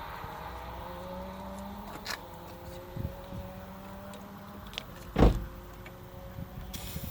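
A small motor's steady whine, rising slowly in pitch, with a few clicks and one loud thump about five seconds in.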